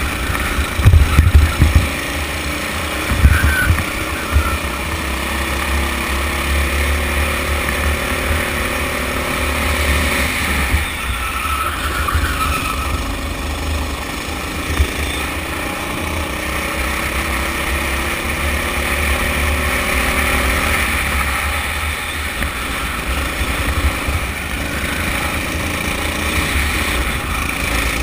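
Onboard sound of a Sodi rental kart's Honda four-stroke single-cylinder engine running under throttle, its pitch slowly rising as the kart gathers speed and dropping twice when it slows, under a heavy low rumble of wind on the camera. A few loud knocks come about a second in and again around three seconds.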